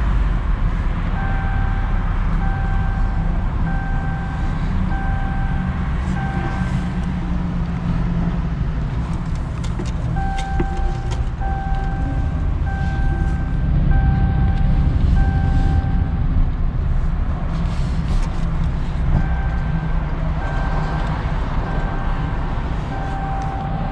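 Ram pickup's seatbelt warning chime beeping about once a second in three runs of several beeps each, sounding because the driver's seatbelt is unbuckled, over the steady rumble of the truck driving.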